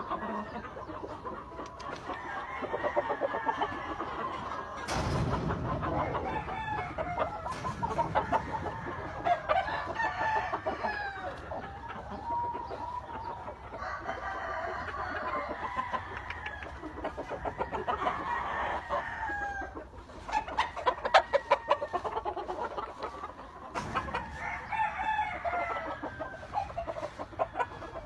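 Kelso gamefowl roosters crowing and clucking over and over, with a few sharp knocks in between.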